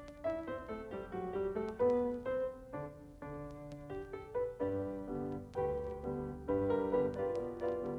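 Solo piano music: a quick run of notes and chords over bass notes.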